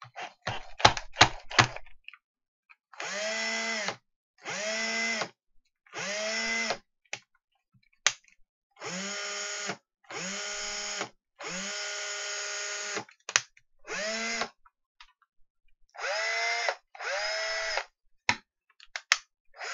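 Bosch PSR 7.2 VES cordless drill motor run in about nine short trigger bursts of a second or so each, pitching up as it spins up and stopping between bursts: the drill working on its newly fitted lithium battery pack. A quick run of clicks comes in the first two seconds.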